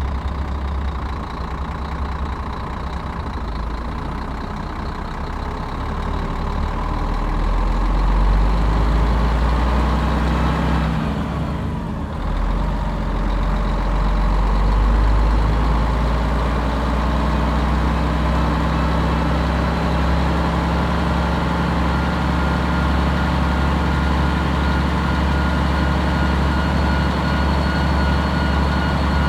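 Bus engine running continuously with a deep rumble. It grows louder about six to eight seconds in, drops away briefly near the middle, then runs steadily at the higher level.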